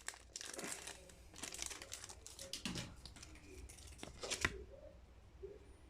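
A foil Pokémon TCG booster pack wrapper being torn open and crinkled by hand, in several rustling bursts with a sharper rip about four and a half seconds in.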